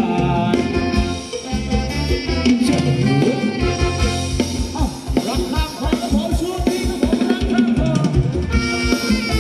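Live band playing Thai ramwong dance music, with melodic instrument lines over a drum kit; the drum beat settles into an even, driving pulse about three and a half seconds in.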